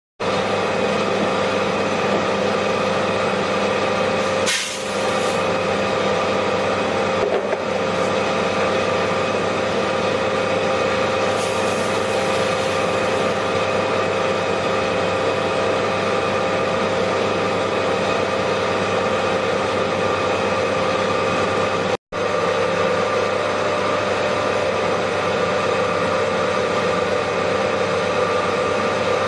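Drum coffee roaster running: a steady motor and blower-fan hum that holds one pitch throughout, with a short rush of hiss about four seconds in.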